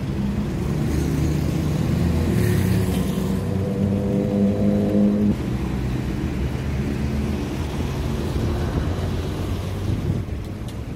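Street traffic: a motor vehicle's engine running close by at a steady pitch, loudest about four to five seconds in, then dropping back to the general low traffic rumble.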